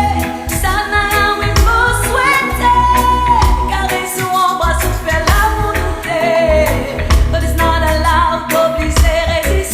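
Pop song playing: a lead melody of long, wavering held notes, likely sung, over deep bass and a steady drum beat.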